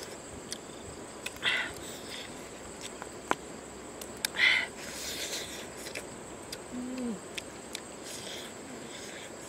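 Someone eating fried eel with chilli by hand: small clicks and two short slurping sucks, over a steady high drone of evening insects. A single short, low, falling hoot-like call sounds about seven seconds in.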